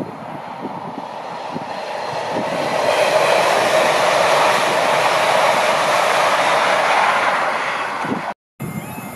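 Two coupled ScotRail Class 385 electric multiple units passing at line speed: a steady rush of wheel, rail and air noise that builds over about three seconds, holds loud, then eases as the train draws away. Wind buffets the microphone at the start, and the sound cuts off abruptly near the end.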